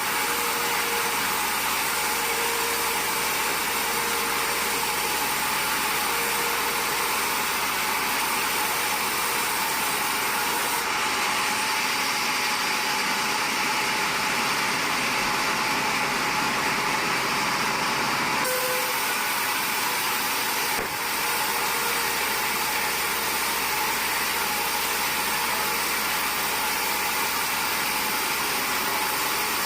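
Sawmill machinery running, a steady, even mechanical noise. Its tone shifts abruptly twice and dips briefly once.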